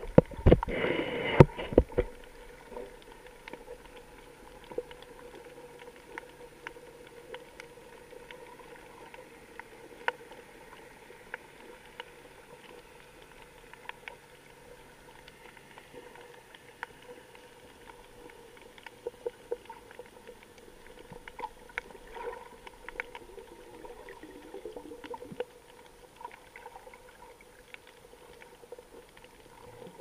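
Underwater sound picked up by a camera in the water over a coral reef: a burst of bubbling and knocks in the first two seconds, then faint, scattered clicks and crackles.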